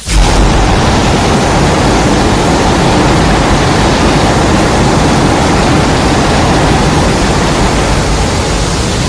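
Loud, steady rushing noise with no pitch or rhythm, a sound effect from a custom Godzilla sound-effects set. It starts abruptly and holds level throughout.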